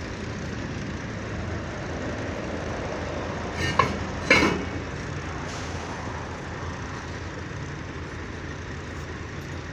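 Steady low rumble of a running truck engine, broken by two short, loud noises about four seconds in, half a second apart.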